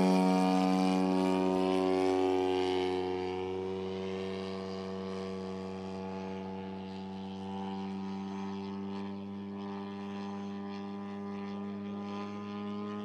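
A large-scale RC Sea Fury warbird model flying overhead, its engine and propeller running at a steady pitch. The sound is loudest at first and fades over the first several seconds as the plane moves away, then holds at a steady, more distant level.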